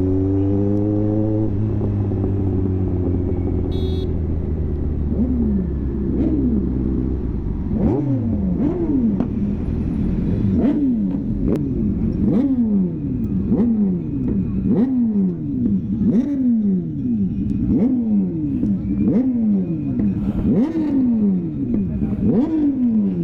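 A Kawasaki Z900's inline-four engine pulls up through the revs while riding and then holds steady. From about six seconds in, a motorcycle engine is revved in repeated throttle blips, about one a second, each a quick climb and fall in pitch, with scattered clicks.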